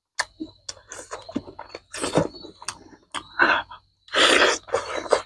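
Close-miked eating of chicken curry with the fingers: wet chewing, lip smacks and a run of small clicks, then a louder, noisy bite into a large piece of chicken about four seconds in.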